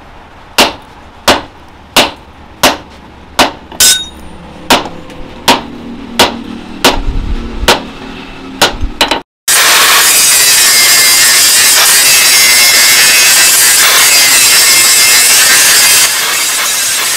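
A hand hammer striking a red-hot steel bar on an anvil: about a dozen even blows, roughly one and a half a second. After a sudden cut about nine seconds in, an angle grinder with a flap disc grinds the steel with a loud steady noise that drops a little near the end.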